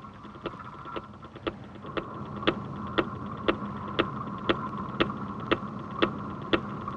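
Sonic tracking transmitter on a tagged angel shark, picked up through a hydrophone receiver as a steady train of pings, about two a second, over a steady hum. The signal is strong, which tells the tracker the shark is close.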